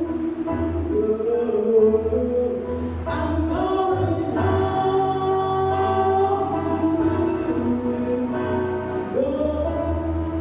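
A spiritual being sung, held sung notes that move smoothly in pitch over musical accompaniment.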